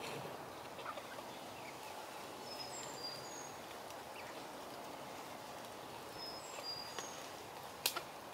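Domestic hens clucking softly as they forage, over a steady outdoor hum. A wild songbird's short high phrase of a few falling whistled notes comes twice, and there is one sharp click near the end.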